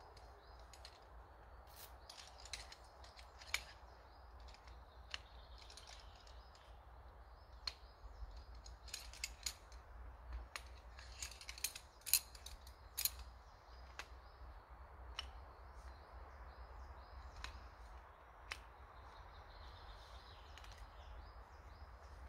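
Irregular sharp clicks and taps, thickest about nine to thirteen seconds in, over faint bird chirping.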